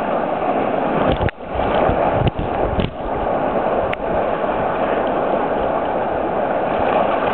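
Whitewater rapids rushing and splashing steadily around a river tube, with the water close to the microphone. A few brief sharp sounds stand out between about one and three seconds in.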